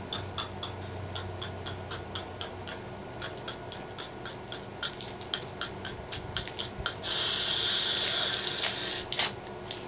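Plastic lollipop wrapper crinkling as it is picked at and pulled off: scattered small crackles and clicks, then a steadier, louder crinkling for about two seconds near the end, with a couple of sharp snaps.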